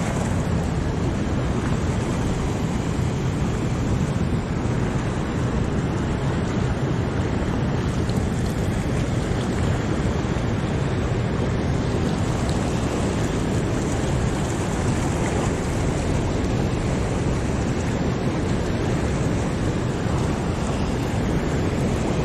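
Steady rush of fast, churning whitewater flowing through a lake spillway inlet, a constant noise heaviest in the low end.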